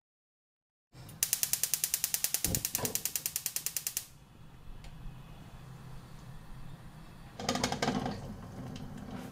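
Rapid, even mechanical clicking like a ratchet, about ten clicks a second for roughly three seconds, stopping abruptly. A steady low hum follows, with a brief louder rush of noise near the end.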